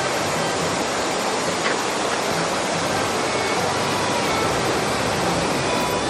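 Waterfall pouring, a steady, even rush of falling water.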